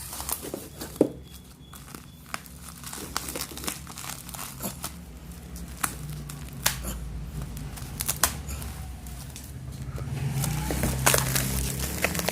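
Packaging crinkling and tearing in irregular crackles and clicks as a tightly sealed power bank box is worked open by hand.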